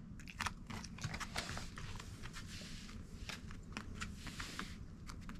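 Mame shiba dog crunching and chewing dry treats: quick, crackly crunches all through. There are two stretches of hissy noise, about a second and a half in and around four seconds in.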